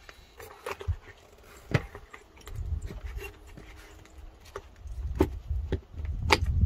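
Stainless steel vent cap clinking and scraping against the foil duct and wall wrap as gloved hands press it into place: scattered sharp clicks, the loudest about six seconds in, over a low rumble.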